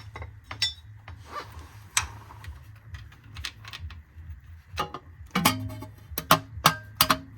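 Scattered metallic clicks and clinks of bolts and tools against a fabricated metal bell housing cover as it is bolted on, a few of them ringing briefly; they come thicker in the last two seconds.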